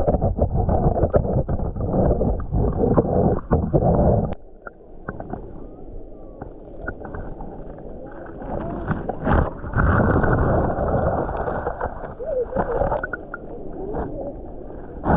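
Wind buffeting the microphone over gurgling seawater in a rock pool; the wind rumble drops off sharply about four seconds in.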